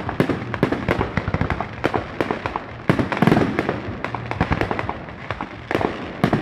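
Aerial firework shells bursting in a dense, rapid series of bangs and crackles, with louder bursts about three seconds in and again near the end.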